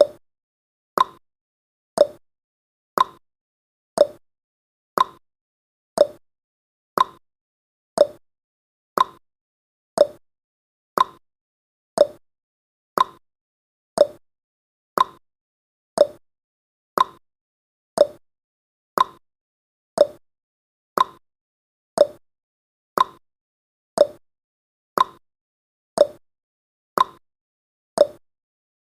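Clock-style ticking sound effect of a countdown timer: one short, sharp tick every second, alternating a higher and a lower tick like a tick-tock.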